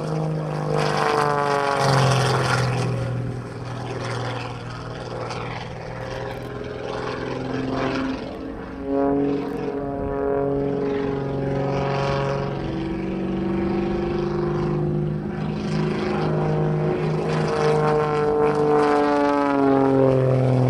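Aerobatic biplane's propeller engine running through manoeuvres, its pitch rising and falling several times as the plane climbs, dives and passes.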